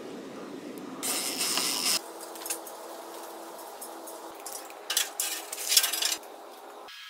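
Workshop handling sounds: short metal clinks and clatter, loudest in a cluster near the end, with a second-long burst of noise about a second in and abrupt cuts between shots.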